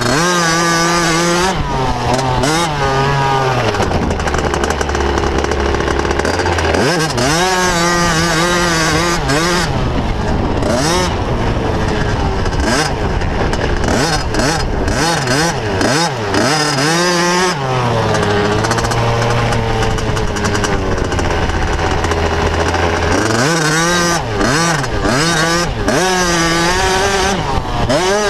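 Motocross bike engine heard up close from the handlebars, revving up and dropping back over and over as the rider works the throttle around the track. Its pitch climbs and falls with each burst, with two longer stretches of lower, steadier running, about four seconds in and again past the middle.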